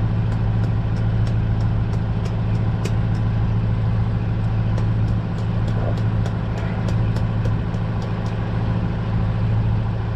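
A steady low engine hum like an idling motor, with a fast, light, high ticking at about three a second through most of it.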